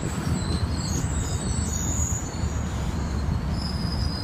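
Amtrak passenger cars rolling past at close range: a steady low rumble of wheels on rail, with faint high wheel squeals coming and going.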